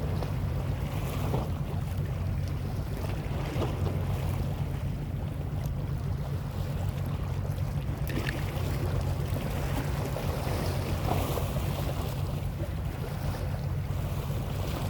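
Steady low rumble of wind and sea waves, with wind buffeting the microphone.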